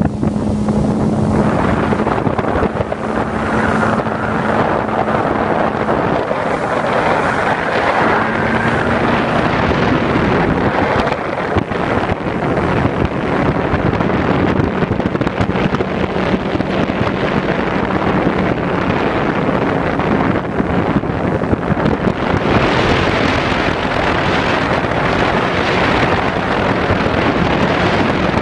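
Outboard motor of a G3 HP180 bass boat running at high speed, a steady engine drone under heavy wind buffeting on the microphone.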